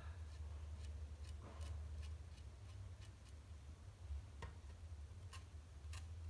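Faint, irregular light clicks and taps of a marker pen and a plastic model car body shell being handled as seam lines are marked on it, over a low steady hum.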